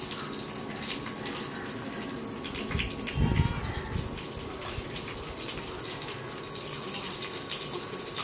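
Steady hissing noise with faint crackles, and a soft low thump about three seconds in.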